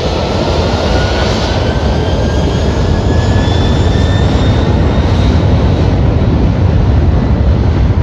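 Jet freighter's twin turbofan engines at high power as it rolls down the runway: a loud, steady engine noise with a faint whine rising slowly in pitch over the first few seconds, growing a little louder.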